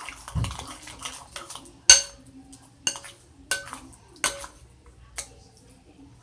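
A utensil stirring slime in a bowl, striking the bowl's side with five sharp clinks about a second apart, each with a brief ring.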